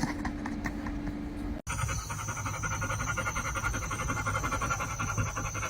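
Music, starting at a sudden cut about a second and a half in; before the cut there is only a low background hum.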